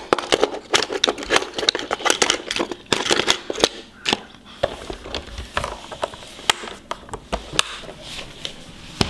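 Diecast toy cars clicking and clacking against the hard plastic slots of a toy car-carrier case as they are handled. The clicks come in a rapid run for the first four seconds or so, then grow sparser.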